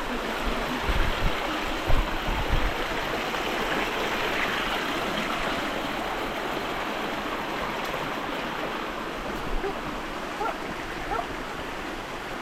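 Steady rush of running water from a stream and waterfalls, with a few low thumps in the first three seconds.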